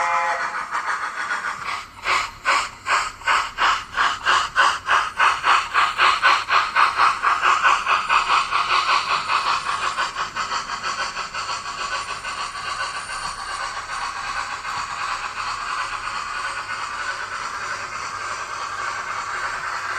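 A Dapol A4 model locomotive's sound decoder plays steam exhaust through its small onboard speaker. After a hiss, the beats start about two seconds in at roughly four a second, quicken steadily as the engine gathers speed, and by about ten seconds run together into a continuous rush, over a faint steady hum.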